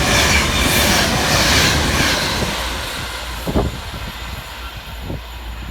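Avanti West Coast Class 390 Pendolino electric train running through the station at speed, its rushing noise fading as it goes away. A couple of short knocks sound in the second half.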